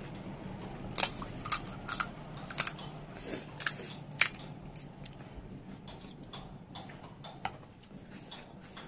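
Crisp fried pani puri shell cracking and crackling as it is broken open, a run of about six sharp cracks in the first half, then fainter ones.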